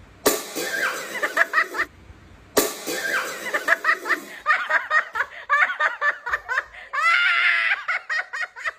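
Several people laughing hard in bursts, with a long high-pitched laugh near the end.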